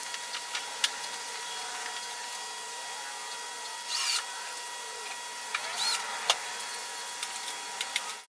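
Power drill driving a screw with a washer up into a black square steel tube: two short spins, about four and six seconds in, each rising and falling in pitch, with a few light clicks between.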